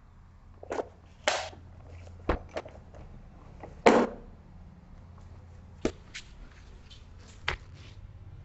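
Irregular knocks and scuffs of a person moving about at a chalkboard: footsteps and handling sounds, the loudest about four seconds in, over a low steady hum.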